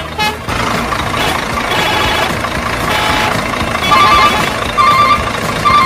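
Truck engine noise with two short high tones, then a reversing alarm beeping evenly about once a second from about four seconds in.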